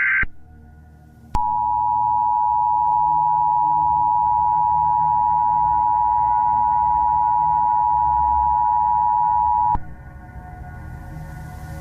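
Emergency Alert System two-tone attention signal: a steady, loud dual-tone beep that starts about a second and a half in, holds for about eight seconds, then cuts off abruptly. It is preceded by the tail of a short screeching EAS data burst, and a low rumble runs beneath.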